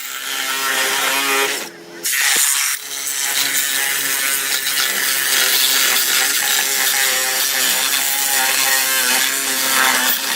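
Milwaukee M18 Fuel Super Sawzall cordless reciprocating saw cutting through a car's sheet-metal body with a steady, ringing buzz; it stops for about a second two seconds in, then starts up again and runs on.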